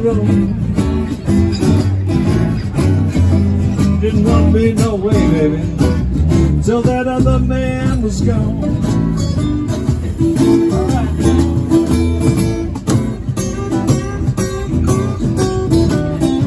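Two steel-string acoustic guitars playing a blues tune together live, strummed rhythm chords under picked lead lines with bent notes.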